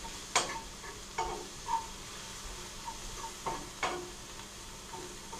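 Fresh mushrooms and garlic sizzling in butter in a frying pan as they are stirred, with several short scrapes of the stirring utensil against the pan. The sharpest scrape comes about half a second in.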